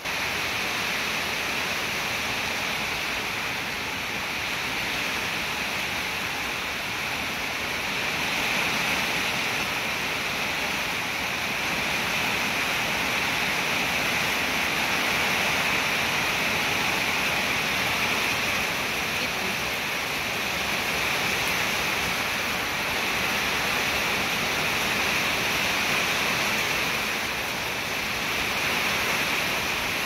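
Rain falling heavily and steadily: an even hiss of water.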